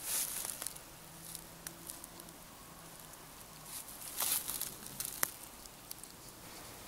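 A hiker's footsteps rustling through undergrowth and dry leaves on an overgrown forest path: one burst of rustling at the start, another about four seconds in, and a single sharp click just after.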